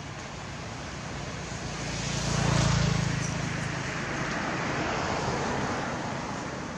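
A passing vehicle's engine, building to its loudest about two and a half seconds in and then slowly fading.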